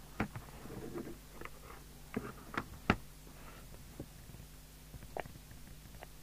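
Scattered sharp clicks and knocks from hands handling the plastic case of a PNI HP55 CB radio, the loudest about three seconds in, over a steady low hum.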